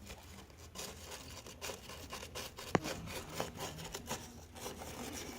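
Irregular scraping and rubbing strokes of hand-dressing the end of a homemade carburetor fuel-inlet fitting, cleaning it up to make a good mating surface, with one sharp click a little before the middle.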